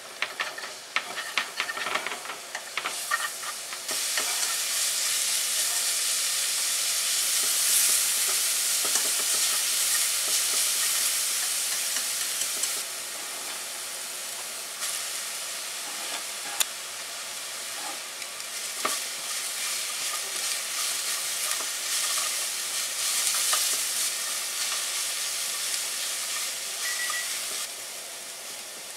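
Shredded dried daikon (kiriboshi daikon) sizzling in oil in a nonstick frying pan, with a clatter of cooking chopsticks against the pan as it is stirred in the first few seconds. The sizzle then runs as a steady high hiss, dropping in level about halfway through and again near the end.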